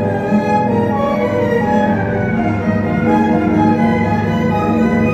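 Orchestral music led by bowed strings, playing long held notes that change every second or so.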